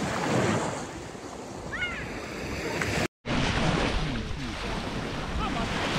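Sea waves washing onto a beach, with wind on the microphone. The sound drops out completely for a moment about three seconds in.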